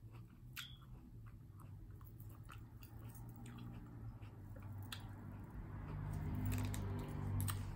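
A person chewing grapes, with soft wet mouth clicks and crunches scattered throughout. A low hum swells near the end.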